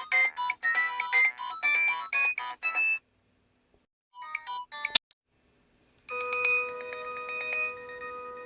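Nokia 5140 mobile phone ringtones played through its loudspeaker. A quick tune of short electronic notes ends about three seconds in. A few short beeps and a sharp click follow around four to five seconds, and then a new ringtone of long held chords begins about six seconds in.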